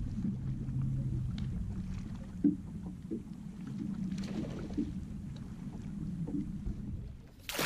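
Bass boat sitting on the water: a steady low rumble with small knocks and a splash-like rush about four seconds in, while a hooked bass is brought to the landing net. Just before the end it cuts to a sudden louder rush of water and wind.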